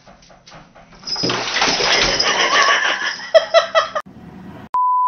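Loud splashing water in a bathtub with a dog and a cat at it, with a few short animal cries about three seconds in. Near the end comes a brief steady beep.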